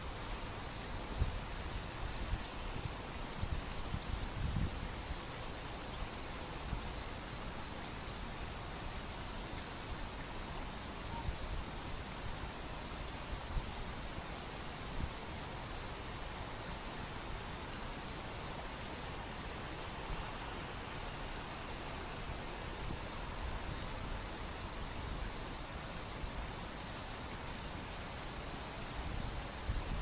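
Shallow, stony river flowing over rocks as a steady rush. Over it, crickets chirp in a fast, even, high-pitched pulse.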